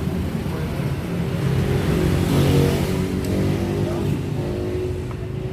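Motorcycle engine running, revved up briefly about two seconds in and then settling back to a lower speed.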